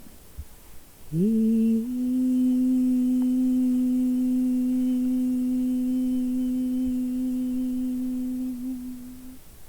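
A singer's voice in wordless improvised singing, sliding up into one long low note about a second in and holding it steady for some eight seconds.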